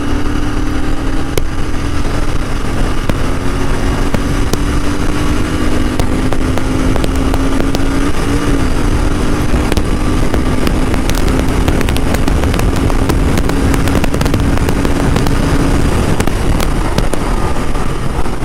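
Royal Enfield Continental GT 650's parallel-twin engine pulling at speed under heavy wind rush on the microphone. The engine note climbs slowly, dips briefly about eight seconds in, then holds before fading under the wind near the end.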